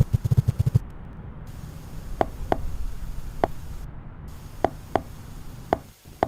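Seahorse clicking: a rapid run of low pulses in the first second, then about seven sharp single clicks at uneven intervals over a steady hiss.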